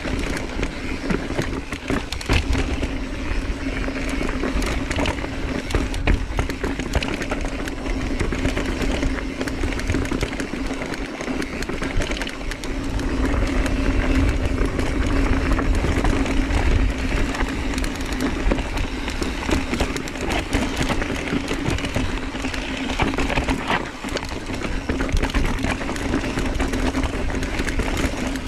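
Mountain bike being ridden over a rocky trail: wind rumbling on the microphone, tyres rolling over rock and dirt, and frequent clicks and rattles from the bike, over a steady hum.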